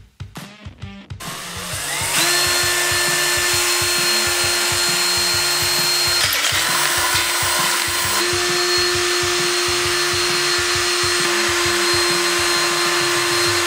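Cordless drill boring holes through a metal tray frame. It spins up a second or two in and runs with a steady whine, breaks briefly around six seconds, and runs slightly higher in pitch after about eight seconds, over a background music beat.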